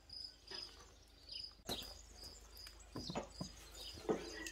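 A cricket chirping steadily, an even short high chirp about three times a second. A few light knocks and clicks come in the second half.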